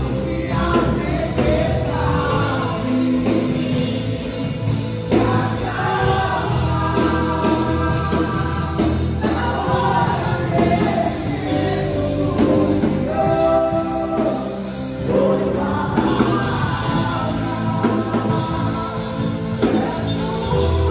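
Christian worship song: voices singing over a full band accompaniment with a steady bass line.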